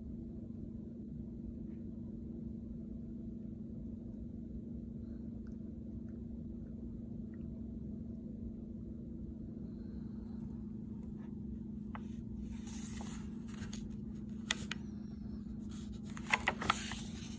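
A steady low hum, with paper pages of a picture book rustling and being handled in the second half, including a few short clicks near the end.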